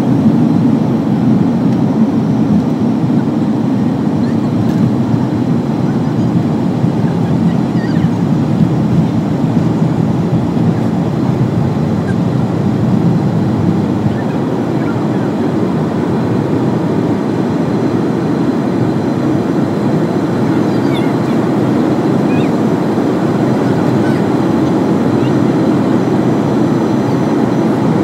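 Passenger jet's engines at takeoff power, heard from inside the cabin as a loud, steady rush through the takeoff roll and climb-out. The noise eases a little partway through.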